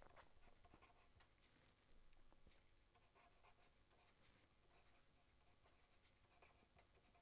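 Faint scratching of a marker pen writing on paper in short strokes, over near silence.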